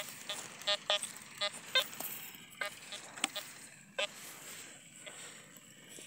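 Metal detector sounding short, pitched target beeps, about nine of them in the first four seconds, as its search coil is swept over stony ground.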